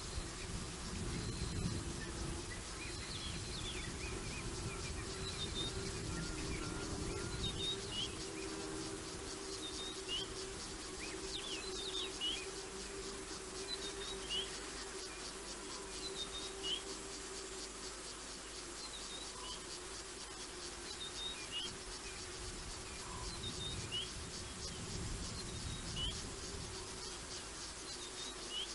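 Bush ambience of insects and birds: a steady, fast insect chirring with short chirping bird calls every second or two, over a low steady hum.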